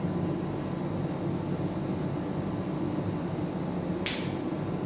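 Steady low hum of room tone in a small room, with one short sharp click about four seconds in.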